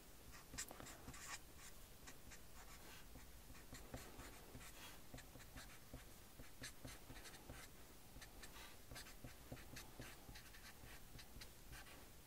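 Centropen marker writing on paper: many short, irregular strokes as figures and symbols are written, faint.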